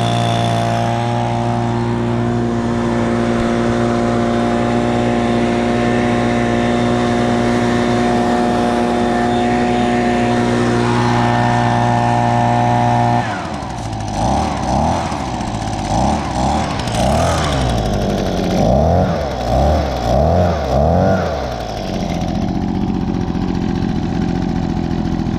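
Echo PB265L backpack blower's 25.4 cc two-stroke engine running at a steady speed. About halfway through it is revved up and down repeatedly, then settles back to a steady, lower speed near the end.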